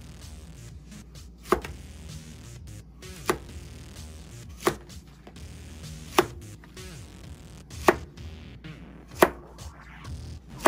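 Chef's knife slicing a zucchini into rounds, the blade knocking sharply on a plastic cutting board with each cut: six cuts, about one every second and a half.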